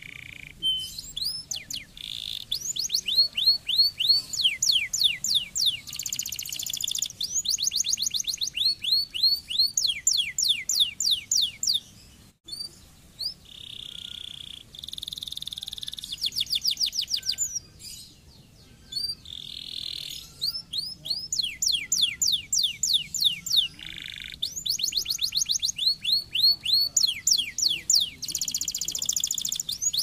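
Domestic canary singing: long rolls of fast trills made of rapid runs of sweeping notes, the pattern changing every second or two, broken by short held whistles, with a brief break about twelve seconds in.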